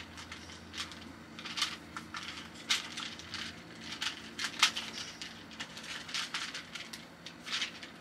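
Magnetic shape-shifting fidget cube being twisted and refolded by hand: irregular small clicks and clacks as its magnetic blocks snap together and pull apart.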